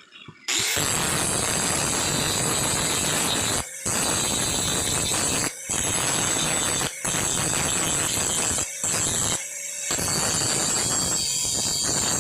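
Handheld power tool running at a steady speed with a loud, rushing noise. It starts about half a second in and breaks off for a moment about six times.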